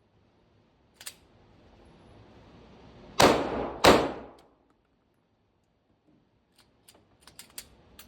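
Two shots from a Glock 26 9mm pistol, less than a second apart, each ringing off. A single click comes before them, and a run of light clicks follows near the end.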